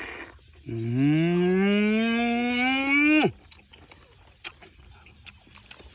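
A cow mooing: one long call, about two and a half seconds, rising slowly in pitch and dropping off sharply at the end.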